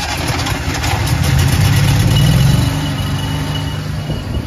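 Small donkey engine running just after being started, with its linkage refitted so it keeps going. It picks up about two seconds in, then settles to a steady run.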